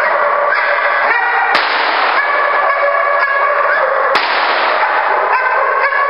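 A protection-trained dog barking repeatedly as it lunges on its leash at a helper. Two sharp cracks cut through, a faint one about a second and a half in and a louder one about four seconds in.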